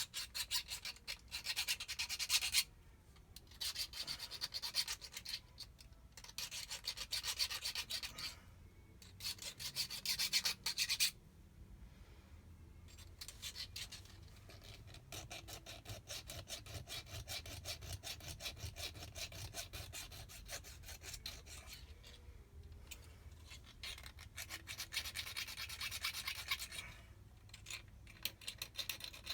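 Hand file rasping on a metal jet-ski pump part in quick back-and-forth strokes: loud runs broken by short pauses in the first third, softer steady filing through the middle, louder again near the end.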